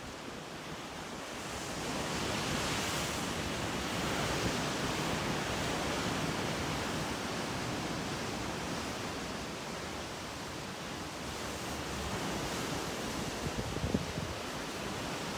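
Open sea and a ship's wake rushing, with wind: a steady rushing noise that swells about two seconds in, with a few short low bumps near the end.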